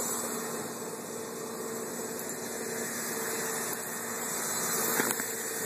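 Steady outdoor background hiss with a faint low hum under it, and a sharp click about five seconds in.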